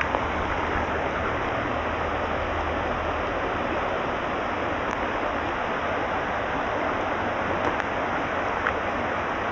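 Shallow, rocky trout stream rushing steadily over stones in riffles.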